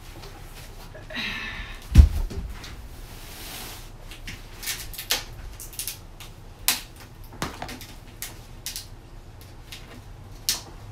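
A whiteboard scraped and set down with a heavy thump about two seconds in, followed by irregular sharp clicks and taps as small items are handled.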